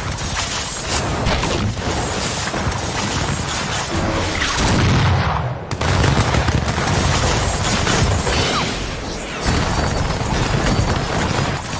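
Anime fight sound effects: a dense, rapid barrage of punch and strike impacts mixed with heavy booming hits. It breaks off briefly about halfway through, then resumes heavier.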